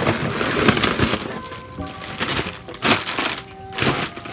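Packing material in a box crinkling and crunching as a hand rummages through it, with sharper crackles about three and four seconds in. Background music plays underneath.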